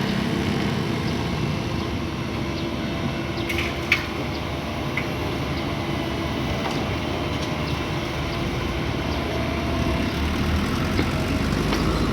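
Excavator's diesel engine running steadily under work, with a single sharp knock about four seconds in.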